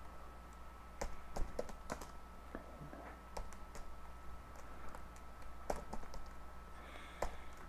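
Computer keyboard typing: irregular single keystrokes and short runs, starting about a second in, over a faint steady hum.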